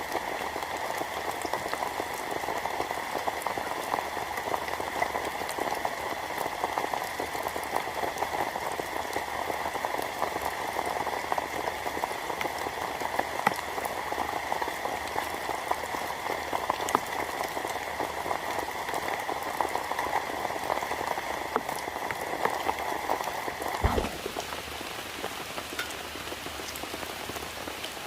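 Steady rain pattering down in a dense, even hiss. About 24 seconds in there is a low thump, and the sound changes to a broader, slightly quieter hiss.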